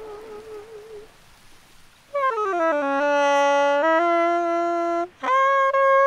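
A woman's wordless vocal line with a slow vibrato fades out about a second in. After a short pause a saxophone enters, sliding down to a low held note, stepping up, breaking off briefly about five seconds in, then holding a higher note.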